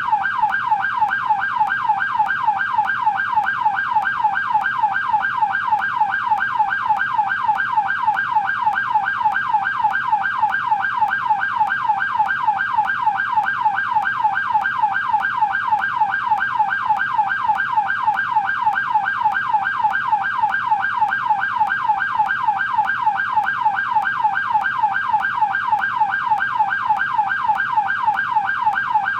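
American police car siren on its yelp setting: a rapid, steady up-and-down wail repeating about three times a second without a break.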